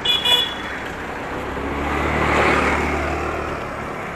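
A car passing close by: its engine hum and road noise swell to a peak about two and a half seconds in, then fade. A short high-pitched tone sounds at the very start.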